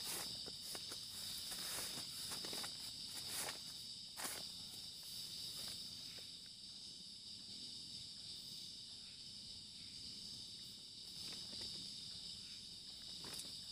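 A steady, high night-insect chorus, with scattered soft rustles and taps, most in the first four seconds and one more near the end.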